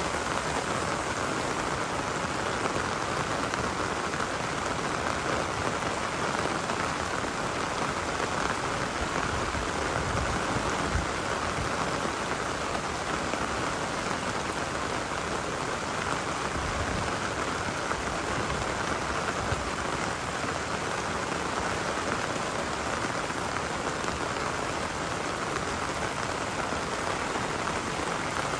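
Rain falling steadily, an even hiss of drops on surfaces that keeps up without a break.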